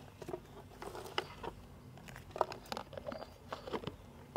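Faint, irregular light clicks and taps of utensils being handled: a plastic spoon and containers knocking against an aluminium pot and board while toasted rice powder is added to the meat.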